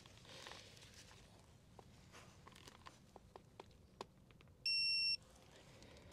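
Electronic torque wrench giving one steady high beep of about half a second, near the end, as it signals the set torque of 45 N·m on a motorcycle fork-leg bolt; a few faint clicks come before it.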